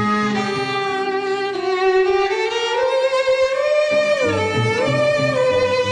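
Bowed violin playing a slow melody of long held notes that slide smoothly up and down between pitches, over low accompanying notes.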